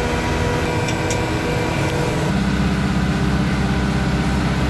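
Tractor engine running steadily at low working speed, heard from inside its cab. The low hum grows heavier a little over two seconds in.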